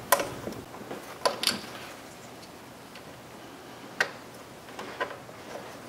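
Scattered sharp plastic clicks, about five spaced unevenly, as spark plug wire boots are handled and pushed onto the ignition coil's towers.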